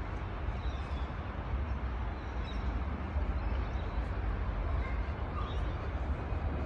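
Outdoor ambience: a steady low rumble with a few faint bird calls scattered through it.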